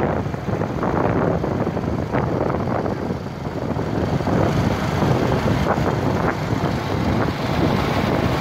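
Small motorcycle engine running at road speed, with wind buffeting the microphone.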